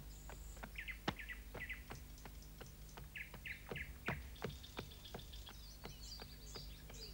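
Faint birds chirping: short chirps in small groups, with scattered soft ticks in between.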